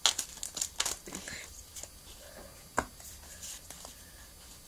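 Foil Pokémon booster pack crinkling as it is opened, with a quick run of crackles at first, then quieter handling of the cards and one sharp tap a little under three seconds in.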